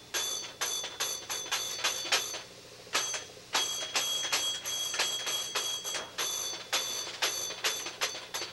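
A small toy bell struck over and over in quick, uneven strokes, a few per second, each ringing briefly at the same pitch, with a short pause about two and a half seconds in.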